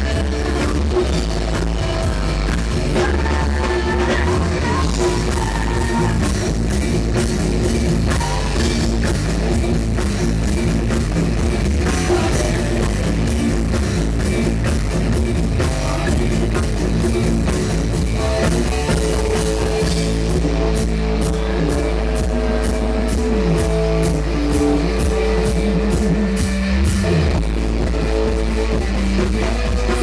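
A rock band playing live: electric guitar through Marshall amplifiers, bass guitar and drum kit, with a woman singing lead vocals.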